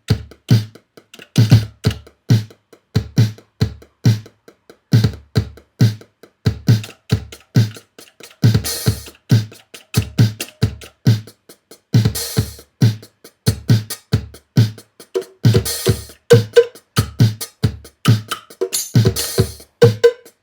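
Linn LM-1 drum machine's sequencer playing back a programmed pattern: a steady kick drum and hi-hats in a regular beat, with a brighter, noisier hit every few seconds.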